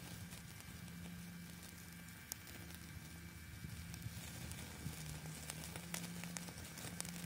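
Wood fire crackling with scattered sharp pops, and beef steaks sizzling on a wire grill, over a steady low hum from the battery-powered mini wood stove's blower fan.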